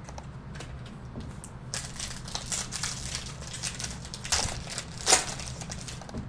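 Plastic trading-card pack wrappers crinkling and being crumpled, with two sharper crackles in the second half.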